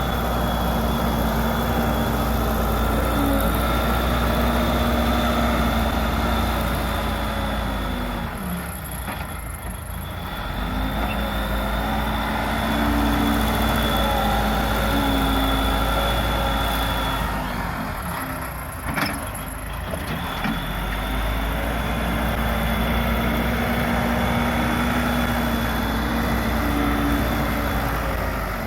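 Case 580 Super L backhoe loader's diesel engine running hard under load, with a steady high whine above it. Twice, about a third and two-thirds of the way through, the engine note drops in pitch and loudness for a second or two, then comes back up.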